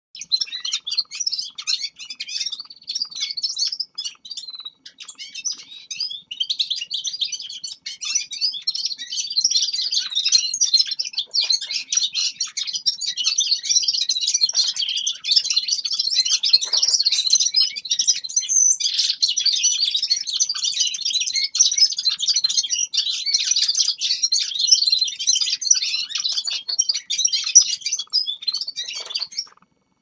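Small caged finches singing and twittering: a dense, unbroken run of quick high-pitched chirps and warbled phrases.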